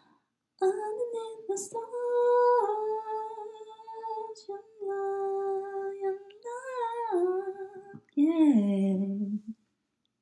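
A woman's voice, close into a handheld microphone, sings wordless held notes without accompaniment. The long notes step up and down in pitch and end on a downward glide near the end.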